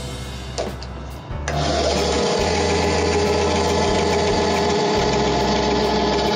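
Charnwood B250 10-inch bandsaw switched on about a second and a half in, its motor and blade then running steadily with no cut yet, over background music.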